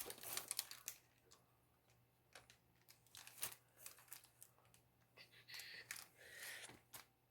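Faint crinkling and rustling of small plastic packets of diamond-painting drills being handled, with scattered light clicks.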